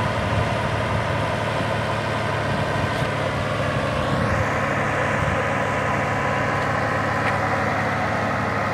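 Engine of a mobile boom-lift crane running steadily as the crane is manoeuvred, with a short rising whine about four seconds in, after which it sounds brighter.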